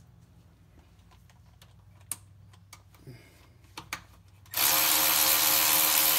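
A few light clicks and taps, then about four and a half seconds in a cordless power driver starts and runs steadily at speed, backing a transmission pan bolt out.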